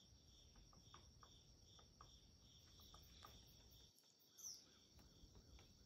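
Faint crickets chirping in an even pulse, about three chirps a second, over a steady high insect trill. A single short falling bird chirp comes about four and a half seconds in.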